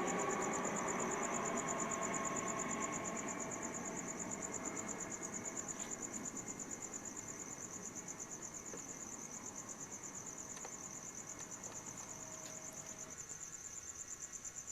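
A DHL cargo jet's engine rumble dying away as the plane recedes after passing overhead, fading steadily. Crickets chirp in a fast, steady high-pitched pulse throughout.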